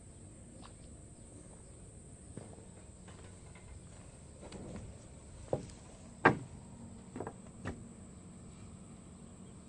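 SANY SY75 long-arm excavator running faintly with a steady low hum, broken by four sharp knocks or clanks in the middle, the loudest about six seconds in.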